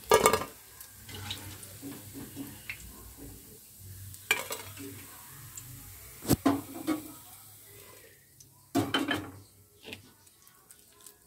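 Steel slotted spoon clanking against a steel kadai and a steel plate as fried pakoras are lifted from the oil and tipped out: a handful of sharp metal clanks, one right at the start, others about four and six seconds in and a cluster near the end.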